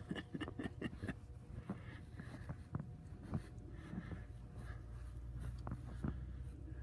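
Footsteps crunching in snow: a quick run of about half a dozen crunches in the first second, then scattered single crunches, over a low steady rumble.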